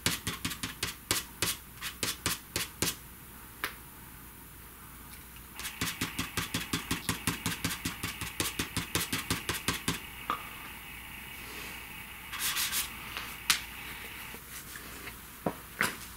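Pastel stick scratching across paper in quick rhythmic strokes, about four a second. There are two runs with a pause between them, then a short burst of scribbling and a few single taps later on.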